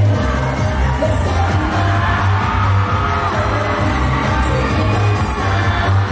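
Pop dance track with singing and a heavy, pulsing bass beat, played loud over a hall's PA system; the bass beat comes in right at the start.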